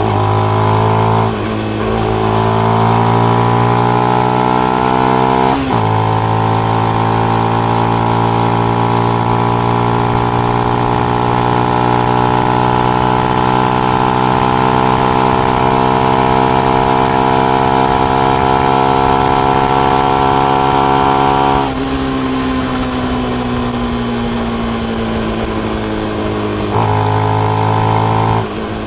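Benelli BN125's single-cylinder four-stroke engine through its stock exhaust with the dB killer fitted, being ridden. There are two quick breaks in the note early on, like upshifts, then a long steady pull with the pitch creeping up. After about twenty seconds the throttle eases off and the note falls, then comes back on near the end with another brief break.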